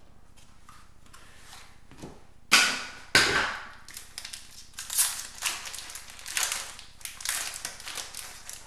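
Foil hockey card pack being torn open: two loud ripping tears a couple of seconds in, then a run of smaller crinkles and rustles as the wrapper is handled and the cards are pulled out and sorted.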